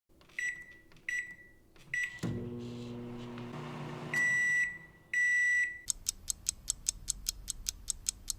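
Microwave oven: three short keypad beeps, then the oven running with a steady hum for about two seconds, then two longer beeps. Rapid beeping, about four a second, follows.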